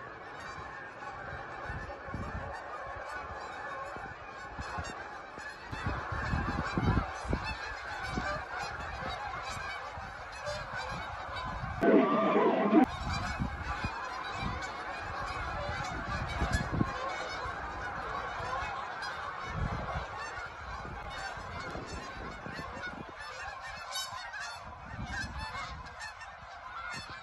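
A large flock of geese flying overhead, honking in a continuous overlapping chorus, with a short louder burst about twelve seconds in.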